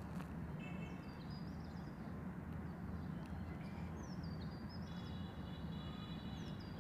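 Steady low background hum with faint bird chirps recurring over it.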